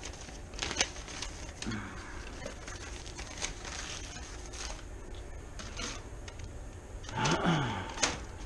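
Spare boiler parts and their packaging being handled: light clicks and rustles, a brief scraping squeak about seven seconds in, then a sharp click.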